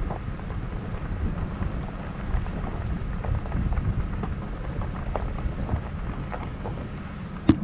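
Vehicle driving on a gravel road: a steady low rumble of tyres and running gear, with small stones ticking now and then and a sharp knock near the end.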